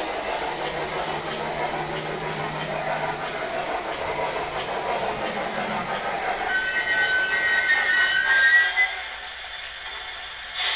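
O-gauge model train rolling over three-rail track, a steady rumble and clatter; about six and a half seconds in, the model steam locomotive's electronic sound system blows a chime whistle for about two seconds, then it cuts off.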